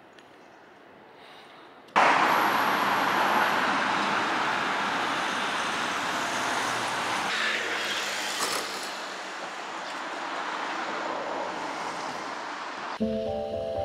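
Steady road traffic noise that starts abruptly about two seconds in, its low rumble changing about seven seconds in, then giving way to music near the end.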